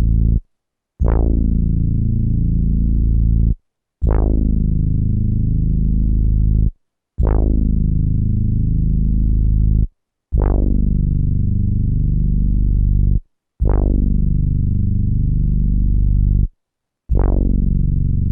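A 12-bit SP1200 sampler playing the same sampled pitched note over and over, about six times. Each note opens bright, quickly dulls, holds steady for about two and a half seconds, and stops cleanly before a short silence.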